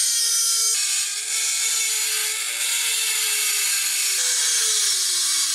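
Dremel rotary tool with a 3/8-inch carbide burr grinding into the cast iron ways of a lathe bed: a steady high-pitched whine over the hiss of the cutting. The pitch jumps abruptly twice and sags near the end as the burr bites.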